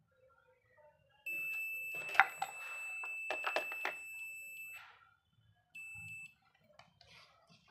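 A steady, high-pitched electronic beep lasting about three and a half seconds, with small clicks and taps during it, then a second short beep of about half a second.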